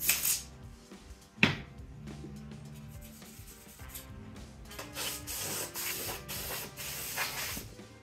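Short hissing bursts of compressed air from a spray can, and a brush rubbing over the plastic housing of a robot vacuum, with a sharp click about 1.5 s in. Faint background music underneath.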